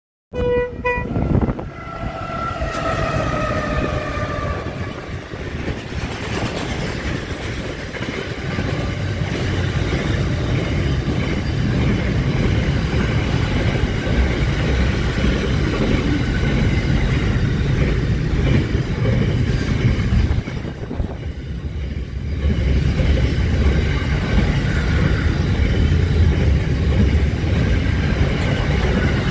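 Aurizon container freight train passing: a horn chord sounds over the first few seconds and slides down in pitch. Then a long line of container wagons rolls by with a steady low rumble and wheel clatter, which dips briefly about two-thirds of the way through.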